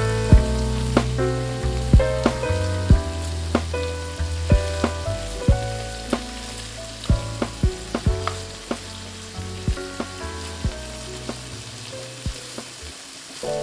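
Bacon pieces sizzling and frying in a non-stick pan, with frequent sharp pops of spitting fat, as they are moved around by hand. Background music with a bass line plays underneath and fades gradually.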